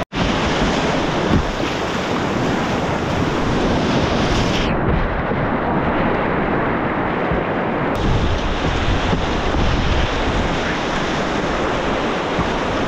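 Whitewater rapids rushing loudly around a kayak, heard from a camera riding just above the waves. From about five seconds in, for some three seconds, the sound turns muffled as water washes over the camera.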